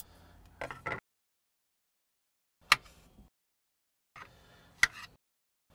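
Two sharp clicks of a kitchen knife against a plate while cutting food, about a second and a half apart, amid long stretches of silence.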